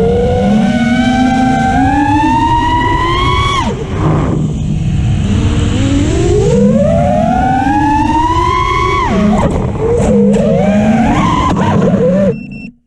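Brushless motors and propellers of a 5-inch FPV racing quadcopter (Nazgul5, 6S), heard from the onboard camera. Their whine climbs steadily with throttle and drops sharply, twice, under a rush of prop wash. Near the end the whine cuts out and dies away as the motors stop.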